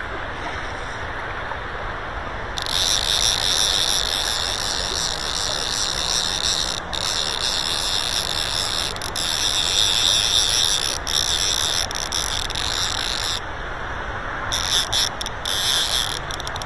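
Fly reel's click-and-pawl drag ratcheting in long buzzing runs while a hooked trout is played. The runs stop and start abruptly, with short spurts near the end, over the steady rush of the river current.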